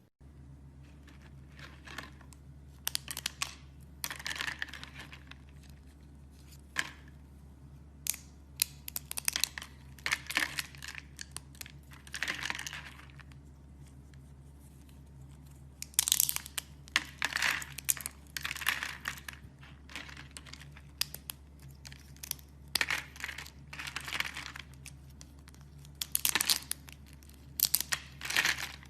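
Slime being squeezed and stretched by hand, making irregular bursts of crackling and popping, over a steady low hum.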